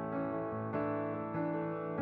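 Background piano music: slow, sustained notes, with a new note or chord about every half second.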